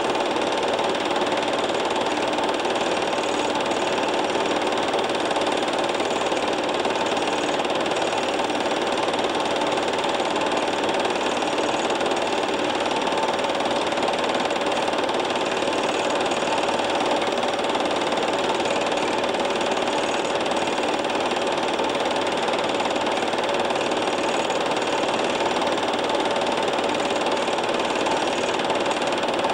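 Film projector running: a steady mechanical whirr with a constant hum that does not change.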